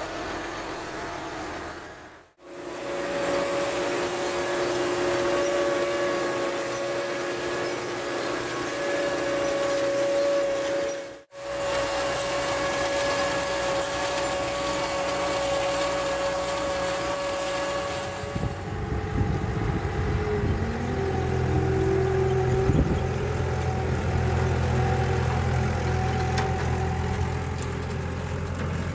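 Valtra tractor engine running steadily while pulling a Sfoggia precision corn planter, with a steady whine over it and two brief dropouts. About two-thirds of the way in, the sound changes to a deeper, heavier engine hum, with a short rise and fall in pitch.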